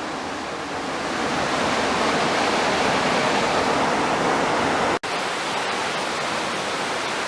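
A small waterfall rushing steadily. There is a brief break about five seconds in, after which the water is a little quieter.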